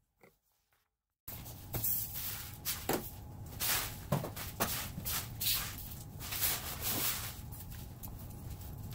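After about a second of near silence, a broom sweeping a concrete floor in quick, irregular strokes, with paper rustling.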